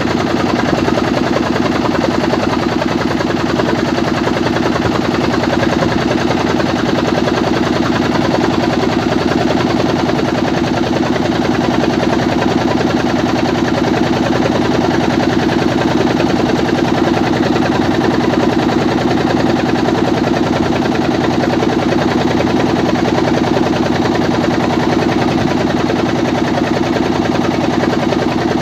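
Motorboat engine running steadily with a fast, even chug, heard from on board.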